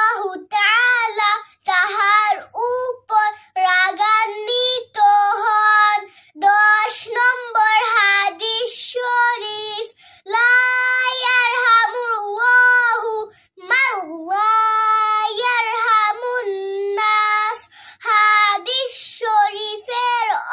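A young girl singing unaccompanied in a high voice, in short melodic phrases with brief pauses, some notes held for a second or more.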